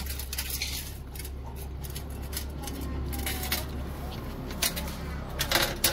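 A dog licking rice off a metal tray: wet lapping with small clicks of tongue and teeth on the metal, and a few sharper clicks near the end.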